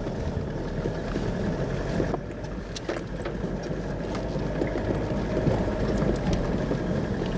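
Car driving slowly over a bumpy grass track, heard from inside the cabin: a steady low engine and tyre rumble with occasional knocks and rattles as it goes over bumps.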